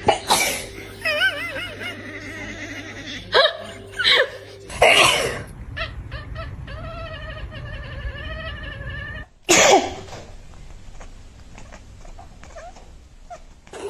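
A person sneezing loudly about five times, with a cat answering between the sneezes in drawn-out, wavering yowls.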